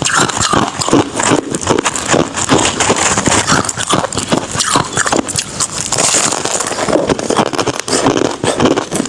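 Crushed and shaved ice being bitten and chewed close to the microphone: a dense, continuous run of crisp crunches.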